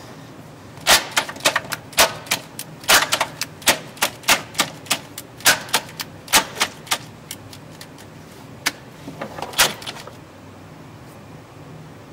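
Sharp, irregular metallic clicks and knocks, two or three a second, as a cordless drill and its bit are worked against a hitch bolt hole in a steel frame rail. The clicks start about a second in, thin out after about seven seconds, and end with a short cluster about ten seconds in. No drill motor is heard running.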